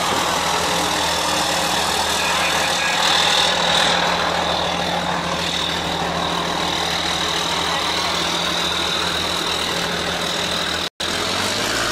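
KAMAZ rally truck's diesel engine running steadily as the truck drives slowly past, with a steady high whistle over it. The sound breaks off for an instant near the end.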